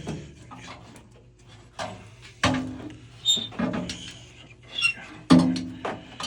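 Metal knocks, scrapes and clinks as a gas water heater's burner assembly is worked back into its combustion chamber, with a few short ringing tones and high pings after the knocks.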